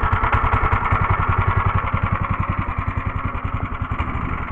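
Woodster PC 13 plate compactor's 6.5 hp single-cylinder petrol engine running on its first cold start, with a fast, regular firing beat. Near the end it slows and fades as the cold engine begins to stall.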